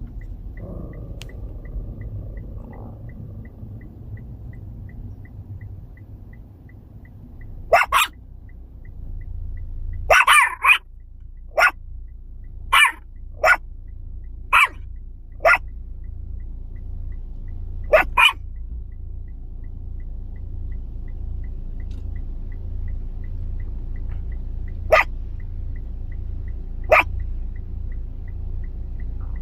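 Yorkshire terrier barking in short, sharp yaps, about a dozen barks spread out, with a quick run of several around ten seconds in and a couple of single barks near the end. A low steady hum underlies it.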